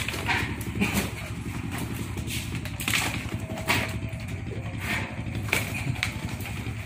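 Live mud crabs being handled and dropped into plastic crates, giving short clattering knocks every second or so, over a steady low engine-like hum.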